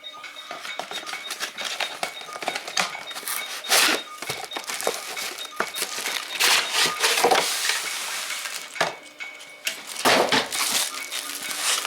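Plastic packaging crinkling and rustling, with small clinks and knocks, as the parts of an all-in-one liquid CPU cooler are unpacked from their box. There are several louder bursts of crinkling.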